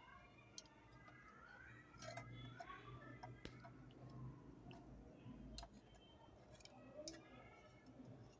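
Near silence with faint, scattered clicks of steel tongs and a spoon tapping a steel bowl and plate as litti are dipped in ghee.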